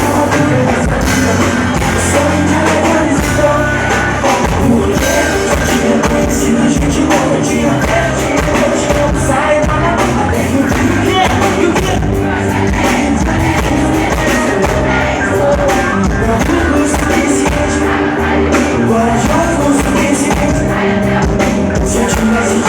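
Live band music with a singer and a steady drum beat, loud and continuous.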